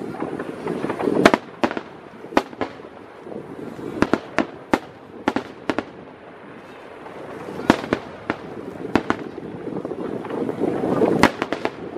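Aerial fireworks display: sharp bangs and pops at irregular intervals, several in quick succession at the busiest moments.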